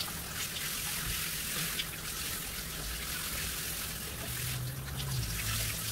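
Shower running: a steady hiss of water spraying and splashing in the shower stall.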